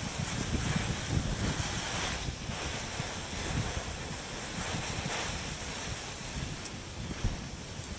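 Water spraying from a hose nozzle onto a heated metal wagon-wheel tire, hissing steadily as it boils off into steam while the tire is quenched to shrink tight onto the wooden wheel. Wind rumbles on the microphone underneath.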